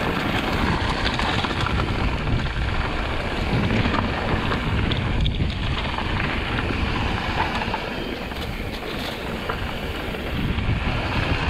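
Wind rushing over the microphone while a mountain bike rides a dirt trail, with the rumble of the tyres on the ground and scattered small clicks and rattles.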